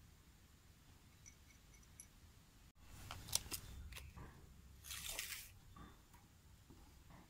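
Steel tape measure being handled: sharp clicks a little over three seconds in, then a short sliding hiss about two seconds later as the blade is pulled out.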